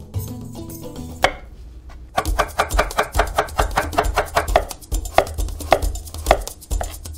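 Chef's knife slicing a carrot on a wooden cutting board: a quick, even run of blade knocks on the board, about six a second, then slower, heavier single cuts near the end.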